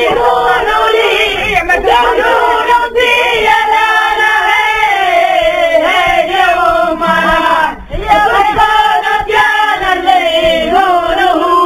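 A group of voices singing a traditional Tunisian wedding song in unison, in long held, wavering notes, with a short break for breath about eight seconds in.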